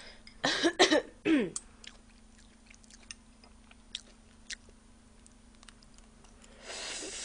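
Close-up eating sounds: short throat and vocal noises in the first second and a half, then soft chewing clicks and light chopstick taps as food is bitten, and a breathy noise near the end.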